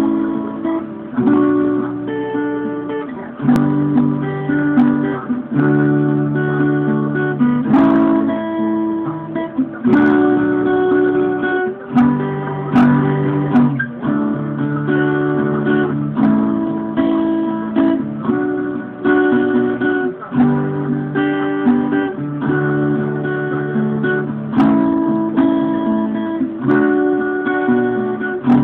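Acoustic guitar strummed, playing a progression of chords that change every second or two.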